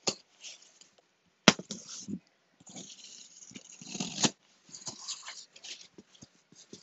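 Box cutter slicing through the packing tape of a cardboard shipping box and the cardboard flaps scraping and rustling as they are pulled open, with a sharp click about a second and a half in and a knock a little past halfway.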